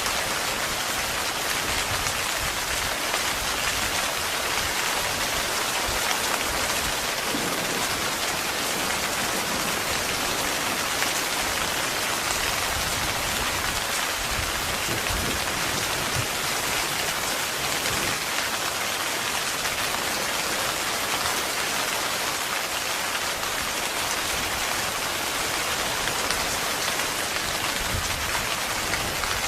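Heavy rain falling steadily on a tent, a dense even patter with no thunder.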